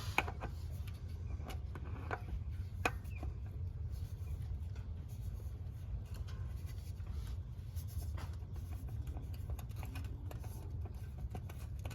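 New spin-on oil filter being threaded and hand-tightened onto its mount, with faint scratching and scattered light clicks, over a steady low rumble.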